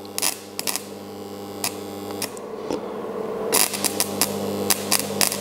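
Transformer stick welder at its maximum setting humming steadily, with irregular crackles and pops as a 3.2 mm electrode is struck and the arc sputters. The machine lacks the power to strike and hold a steady arc with this electrode.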